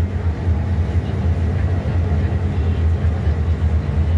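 Steady low drone of a Scania K320C city bus on the move, heard from inside the passenger cabin: its rear-mounted five-cylinder diesel and running gear at an even pace.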